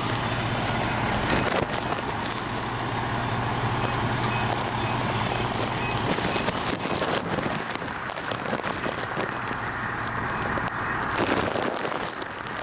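Engine-driven fire equipment running steadily, a low hum over a continuous rushing noise; the hum drops away about six seconds in and comes back near the end.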